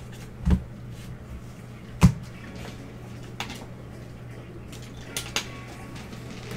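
Several sharp plastic clicks and knocks as a stack of trading cards in rigid plastic holders is handled and set down on a table. The loudest comes about two seconds in, over a steady low hum.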